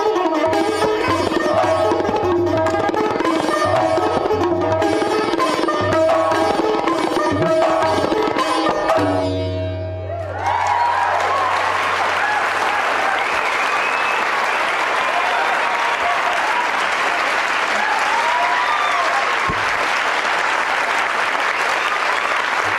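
Sitar, pipa and tabla playing the closing bars of a piece, ending on a final stroke that rings out about nine seconds in. About a second later the audience breaks into steady applause with a few cheers.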